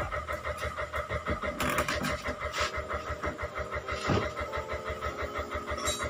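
Twin-tub washing machine's wash motor running, a steady hum with a regular low pulsing about five times a second. A few short clatters break in about two seconds and four seconds in.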